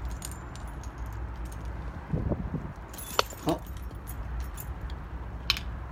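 Heavy rain and wind outdoors, heard on a phone microphone as a steady low rumble, with a few sharp clicks about three seconds in and again near the end.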